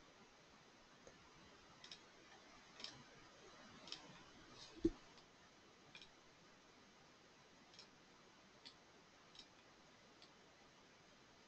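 Near silence with faint computer mouse clicks, about a dozen at irregular intervals, and one soft thump about five seconds in.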